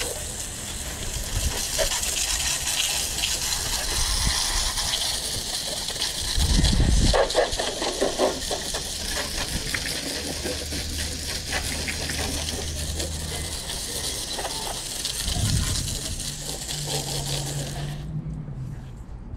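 Garden hose pistol-grip nozzle spraying water onto a mower, a steady hiss of spray and splashing, with a couple of dull low thumps. The spray shuts off near the end.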